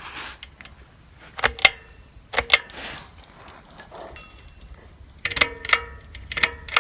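Sharp clicks and knocks with a brief metallic ring, from a ceiling fan's housing and parts being handled. They come in pairs early on and in a tighter cluster near the end.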